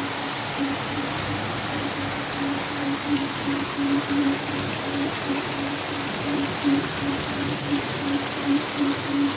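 Heavy rain falling steadily, with a low, dull tapping that comes back irregularly about twice a second, like drips landing on a surface.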